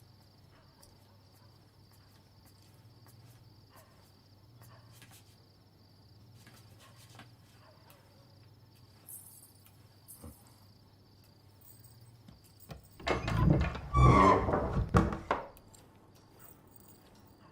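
Faint steady chirping of insects over a low hum, with a few small clicks. About thirteen seconds in, a loud clatter of knocks and rattles lasts around two seconds.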